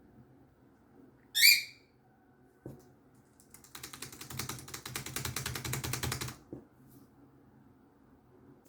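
A lovebird gives one short, loud chirp. Then come a single click and, from nearly four seconds in, a fast clatter of clicks lasting almost three seconds as the bird pecks and nibbles at keyboard keys.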